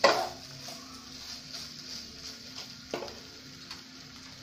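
Wooden spatula knocking against a non-stick wok, once sharply at the start and again about three seconds in, over a faint sizzle of spice paste frying in the pan.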